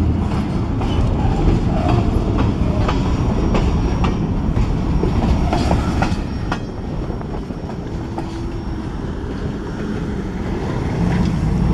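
Freight cars rolling past: steel wheels clicking over rail joints over a steady rumble. About two-thirds of the way through, the clicks thin out and the sound drops as the last car, a covered hopper, goes by and the train moves away.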